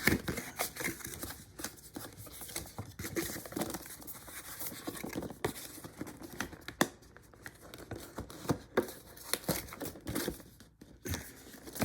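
A product box being struggled open: irregular tearing, crinkling and scraping of the packaging, with many short sharp clicks.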